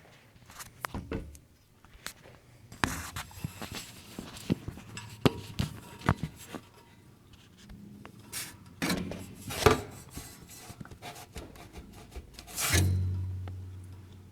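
Scraping and rubbing with scattered clicks and knocks at irregular intervals; near the end a low hum starts suddenly and fades away.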